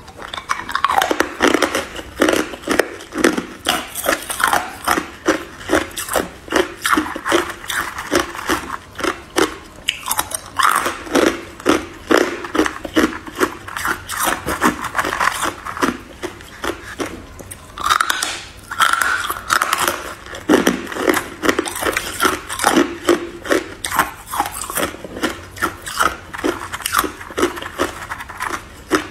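Chunks of hard ice bitten and crunched between the teeth: a steady run of sharp, cracking crunches, about two or three a second, with short gaps between bites.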